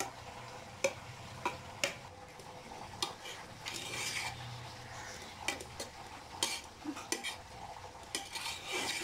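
A perforated metal ladle stirring cooked rice in an aluminium pressure cooker, scraping and clinking irregularly against the pot's sides and bottom.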